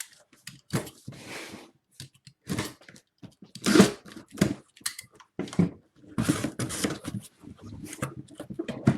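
Sealed cardboard box being cut and torn open and its packaging handled, in an irregular run of scraping, tearing and rustling bursts.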